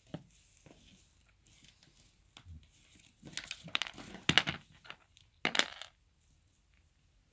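Small plastic toy pieces clicking and rattling as they are handled and set on a placemat, with a few scattered clicks, then a busy run of clicks about three to four and a half seconds in and a shorter burst near five and a half seconds.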